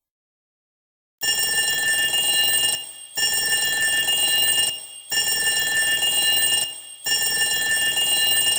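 Cubot X6 smartphone stock alarm tone: after about a second of silence, four sustained rings, each about one and a half seconds long with short breaks between, made of many steady high tones.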